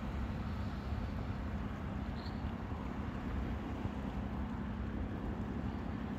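A steady low rumble with a constant hum, typical of an engine running.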